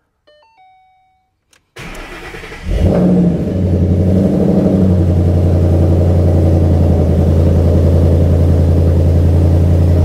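A Ford Mustang's engine is cranked by the starter for about a second and catches with a brief rev. It then settles into a steady idle.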